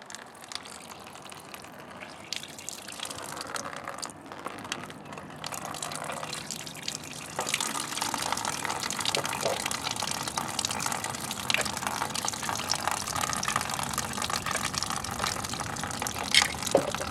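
Engine coolant pouring out of a motorcycle's radiator drain hole and splattering below, the flow swelling in two steps, a few seconds in and again about halfway, as the radiator cap is opened. A brief clatter near the end.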